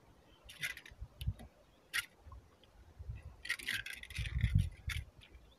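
Handling noise from a fishing handline being worked over the side of a small boat: scattered short rustles and a few sharp clicks, with low dull bumps.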